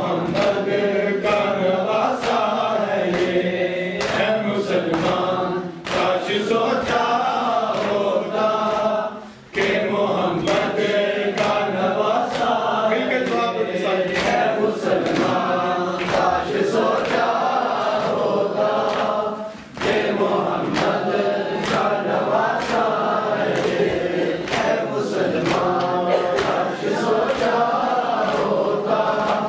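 Men's group chanting a Muharram lament (noha) in unison, with a steady rhythm of open-hand slaps on the chest (matam) keeping time. The chant pauses briefly twice, about a third and two-thirds of the way through.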